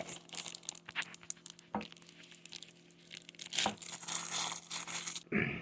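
Packaging crinkling and rustling as it is handled, in short, irregular bursts with scattered clicks, busiest near the end.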